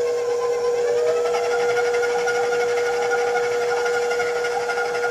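Electric stand mixer running with its flat paddle beating a thick almond cream (frangipane) of butter, almond powder, sugar and egg. A steady whine over a rough churning noise, with a second, higher tone joining about a second in.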